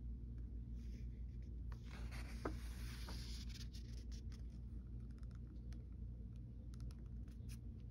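Pages of a printed sewing machine manual being turned and handled: a paper rustle about two seconds in, then light ticks and rubs of paper, over a steady low hum.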